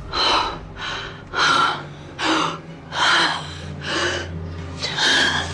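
A woman gasping for breath in a run of seven or eight short, ragged gasps, in distress from a sudden dizzy spell.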